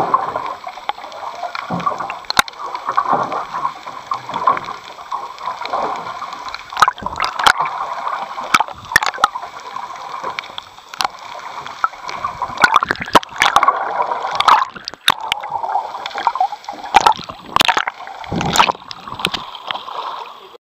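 Muffled water rushing and gurgling past a GoPro Hero 3's waterproof housing underwater, crossed by frequent sharp clicks and knocks.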